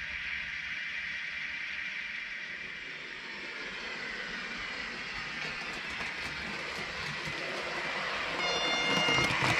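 Steady running noise of model trains on the track, with one short digital-sound horn blast from a model railway sound decoder a little before the end.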